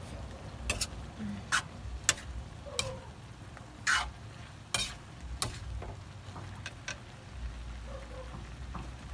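Metal spatula stirring and tossing eggplant and pork in a metal wok, scraping and clanking against the pan about ten times at irregular intervals, most of them in the first six seconds, over faint sizzling of the frying food.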